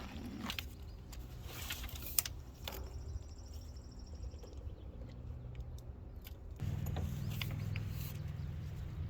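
A motor running steadily at a low, even pitch, louder from about two-thirds of the way in, with scattered sharp clicks and knocks over it.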